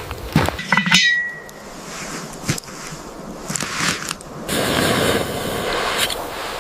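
Metal cookware being handled: scrapes and clinks, with one sharp clink about a second in that rings briefly. A steady hiss comes in during the second half.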